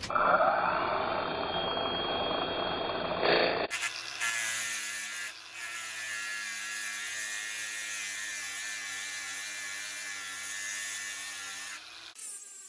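Angle grinder fitted with an abrasive wheel, running and grinding bare steel. A rising whine in the first few seconds, then, after an abrupt change in sound about four seconds in, a steady buzzing hum that stops near the end.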